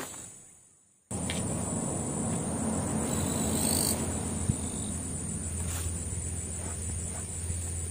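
Insects chirring in a steady, high-pitched drone over outdoor background noise, starting abruptly about a second in after a near-silent moment. A few faint knocks sound over it.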